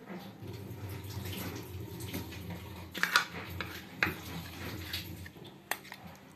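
A metal spoon stirring broth in a pressure cooker: liquid sloshing, with a few sharp clinks of the spoon against the pot.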